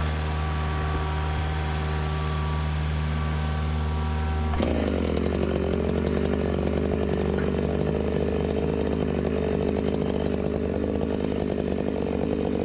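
Chainsaw running over the steady low hum of a diesel excavator engine. About four and a half seconds in, the saw suddenly revs up and keeps running hard.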